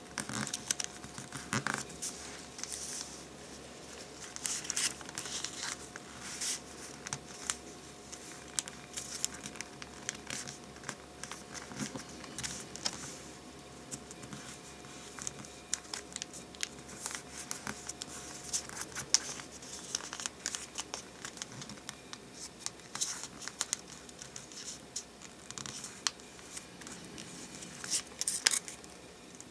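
Origami paper being folded and creased by hand: irregular crinkling and rustling of the paper, with short sharp crackles and scratches as the folds are pressed flat.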